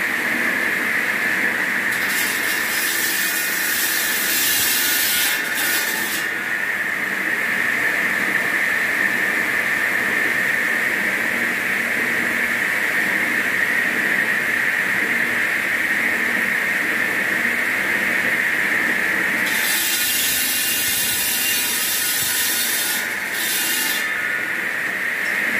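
Large water-cooled circular stone-cutting saw running with a steady high whine. Twice, for a few seconds each, a loud hissing grind rises over it as the blade cuts into a block of volcanic stone.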